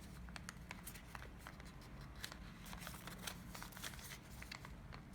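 Faint crinkling and small ticks of origami paper being handled and creased as petal flaps are folded back, over a steady low hum.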